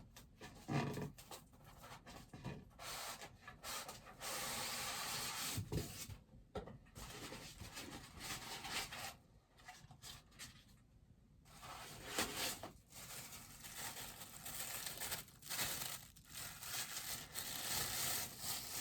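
Cardboard and packaging rustling, rubbing and clicking as a bobblehead is taken out of its box, with a steady scraping noise lasting about two seconds, about four seconds in.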